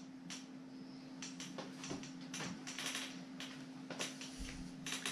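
Faint, scattered clicks and taps of chrome Torx bit sockets being handled in their plastic storage case, over a steady low hum.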